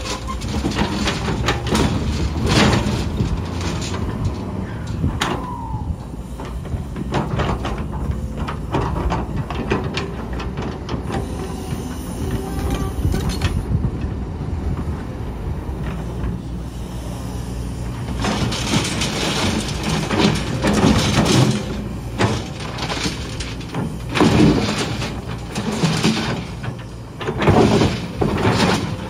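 Kobelco hydraulic excavator's diesel engine running under load, with the steel bucket scraping and clanking against broken concrete slabs and rebar as it digs. The clatter thins out in the middle and is heaviest near the end.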